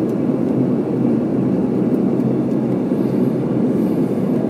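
Steady low drone of an airliner's engines and airframe, heard from inside the passenger cabin as the plane taxis after landing.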